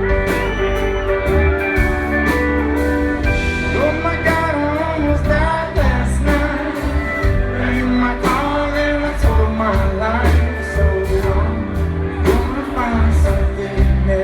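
Live rock band playing loud and steady, with drums, bass and guitar under a singing voice.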